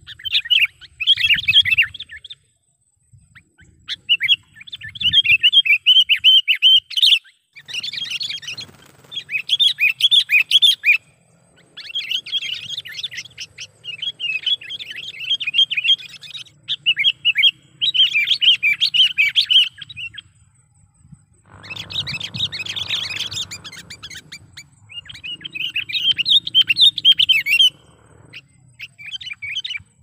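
Sooty-headed bulbul (kutilang) calling in bursts of rapid, chattering notes, each one to three seconds long with short pauses between them. One burst about two-thirds of the way through is harsher and fuller. These are the loud calls of a trained decoy bird, used to lure wild bulbuls.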